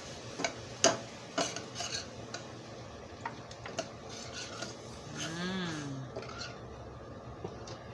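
A metal slotted spoon stirring and scraping in a stainless steel skillet, clinking irregularly against the pan, loudest about a second in, as water is stirred into browned flour and onions to make gravy. The pan sizzles faintly underneath.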